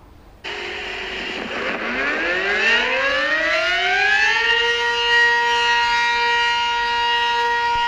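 Emergency warning siren winding up, its pitch rising over about three seconds from low to a steady wail that then holds.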